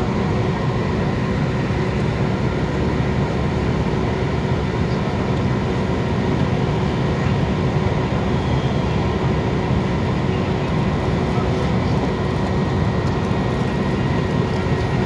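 Steady engine and road noise of a moving vehicle, an even low rumble with a faint steady hum.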